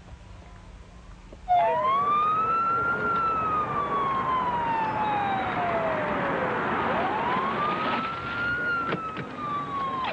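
Police car siren wailing, cutting in suddenly about a second and a half in: two slow wail cycles, each rising and then falling away over several seconds, over a steady rush of noise.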